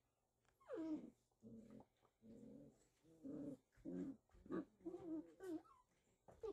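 Six-week-old Pyredoodle puppies play-fighting, making a string of about ten short yips and whines, some falling in pitch.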